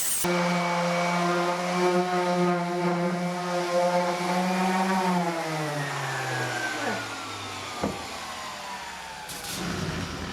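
Electric power tool motor running at a steady pitch, then switched off about five seconds in and winding down, its pitch falling until it stops about eight seconds in, followed by a single click.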